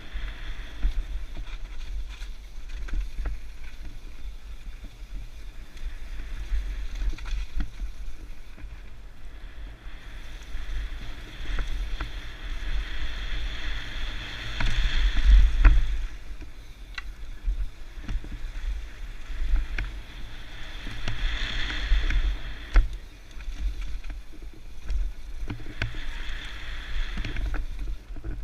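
Mountain bike riding down a dirt trail: wind buffets the microphone in a steady low rumble. Tyre hiss swells and fades every few seconds, and frequent sharp clicks and rattles come from the bike.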